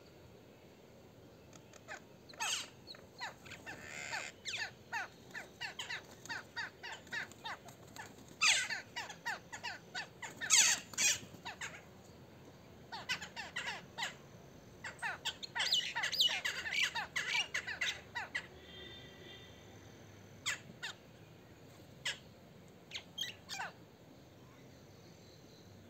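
Mynas and crows calling over one another: harsh squawks, chatter and caws, thickest in three busy spells, then sparser calls near the end.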